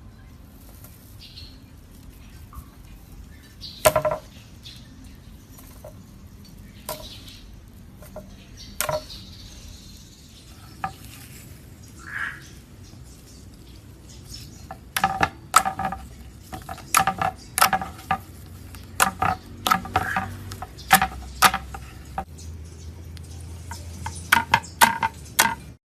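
Slime being squished and pressed by hand, making sharp sticky pops and clicks: a few scattered ones at first, then coming thick and fast in the second half.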